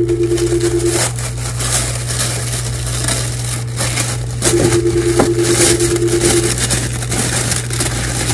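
Plastic packaging crinkling and crackling as it is handled and pulled open. A steady low hum runs underneath, and a held tone sounds twice: for about the first second, then for about two seconds from four and a half seconds in.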